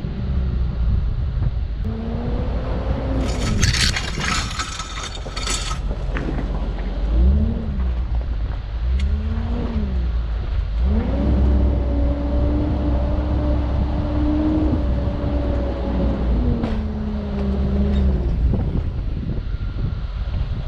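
Land Rover Discovery 2 engine working off-road over rocks, with two short blips of throttle, then a longer held rev that drops back about four-fifths of the way through. A few seconds in, a harsh scraping burst lasts about two seconds.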